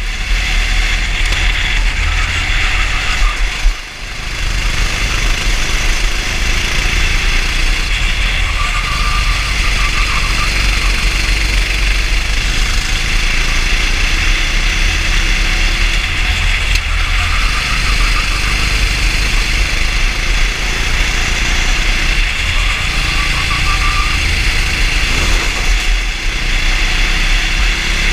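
Racing kart engine running at race speed, heard from the driver's seat, a dense steady drone that dips briefly about four seconds in.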